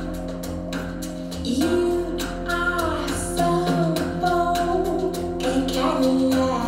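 A song with a sung melody, played through custom open-baffle full-range speakers driven by a 6BM8 single-ended Class A tube amplifier. Steady accompaniment with an even beat, and the vocal line comes in about one and a half seconds in.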